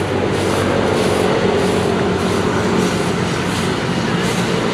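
A heavy vehicle's engine running steadily, with a faint regular tick about twice a second.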